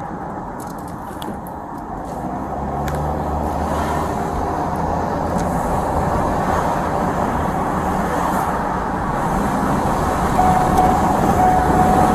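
Steady rumble of a moving vehicle, growing louder, with a thin steady tone coming in near the end.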